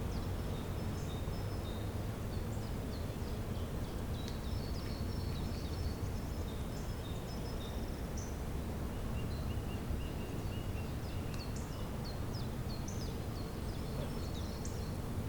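Several songbirds chirping and calling in a spring forest over a steady low rumble of background noise. There are many short high chirps, and a quick, lower trill runs from just past the middle for about three seconds.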